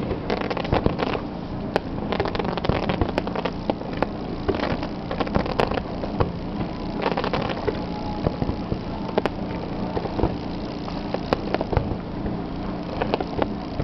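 Fireworks finale barrage: a continuous rumble of overlapping shell bursts, with sharp bangs and crackle every fraction of a second.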